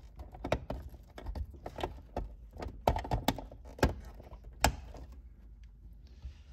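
Plastic clicks and knocks of a bulb socket being twisted clockwise into a Honda Civic's third brake light housing, with the hand handling the wiring harness: a string of sharp, irregular clicks over about five seconds, then it goes quieter.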